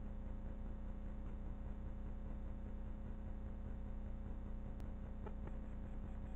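Steady electrical hum over a faint hiss: the recording's own background noise. A few faint ticks come about five seconds in.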